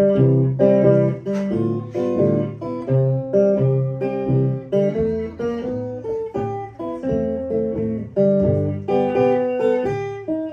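Solo hollow-body archtop electric guitar, fingerpicked: single plucked notes and chords over a low bass line in a steady rhythm.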